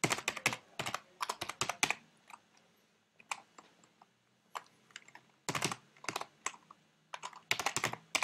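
Typing on a computer keyboard: quick runs of keystrokes, with only a few scattered key presses for a couple of seconds in the middle.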